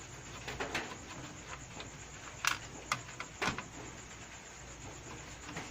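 A few scattered sharp clicks and light knocks of hands working on the opened plastic housing of a speaker during disassembly, over a steady low hum.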